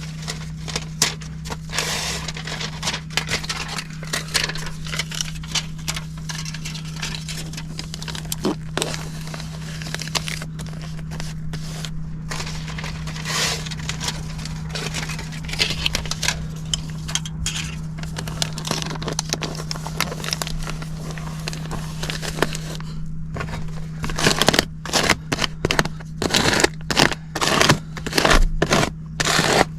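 Irregular crackling and scraping of ductwork being sealed around a new zone damper, with louder handling bursts starting about 24 seconds in, over a steady low hum.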